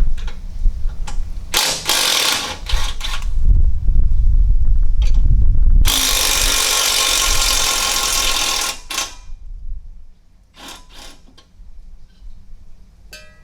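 A power tool undoing bolts. There are short bursts first, then one long run of about three seconds midway, followed by a few metallic clicks.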